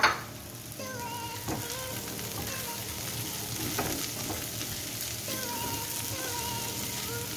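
Green beans, chillies and spice paste sizzling steadily in hot oil in a non-stick wok while being stirred with a spatula, which scrapes the pan twice.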